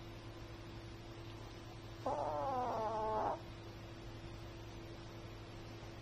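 Chihuahua snoring: one pitched, wavering snore about two seconds in, lasting just over a second.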